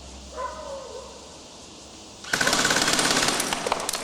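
An airsoft rifle firing one full-auto burst of rapid, evenly spaced shots, lasting about a second and a half and starting a little past halfway.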